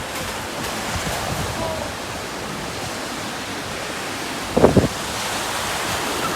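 Ocean surf washing onto the beach with wind buffeting the microphone, a steady rush of noise. About four and a half seconds in, a brief voice sound cuts in.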